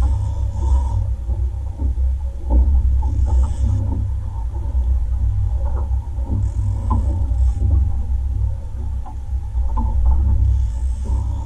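Boat's outboard motor running with a continuous low rumble, with short hissing bursts several times and scattered small knocks.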